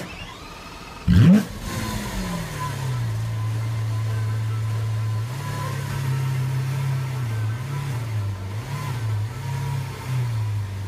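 Supercar engine given one sharp, loud rev about a second in, then running at low revs with a few small blips of the throttle.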